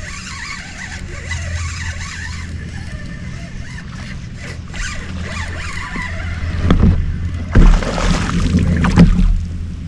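Spinning reel being cranked while a hooked chain pickerel is fought from a kayak, with a few loud thumps in the last three seconds as the fish is brought in.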